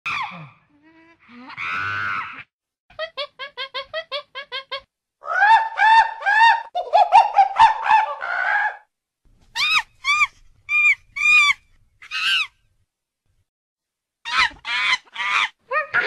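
Monkey calls: runs of short, shrill, arched calls with brief pauses between them. First comes a quick string of about eight short calls, then louder, faster chattering runs, then a few higher single calls.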